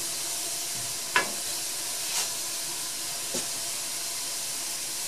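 Diced root vegetables, onions and tomato paste sizzling as they brown in a hot cast-iron Dutch oven, stirred with a wooden spatula that clacks against the pot three times; the first clack, about a second in, is the loudest.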